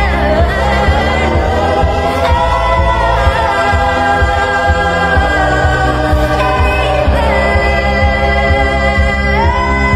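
Sped-up pop song: a pitched-up voice sings long held notes that slide between pitches, over a steady low bass pulse.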